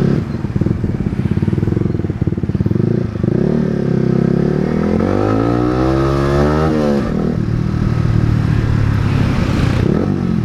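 Yamaha R15's single-cylinder engine through an SC Project aftermarket exhaust with its silencer fitted, ridden on the road. The note runs steady, then the revs climb for about three seconds and drop away suddenly about seven seconds in, before settling back to a steady note.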